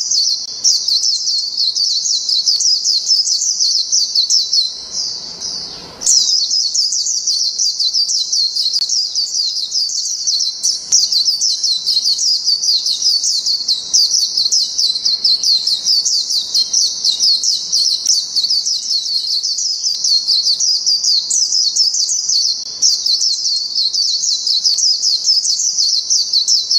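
White-eye (Zosterops) singing a long, fast, high-pitched twittering song with almost no pauses, breaking off briefly about five seconds in before starting again.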